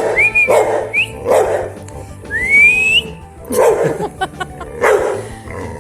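A person whistles short notes, with one long rising whistle partway through. A boxer dog answers about four times with short howling vocalisations, singing along to the whistle.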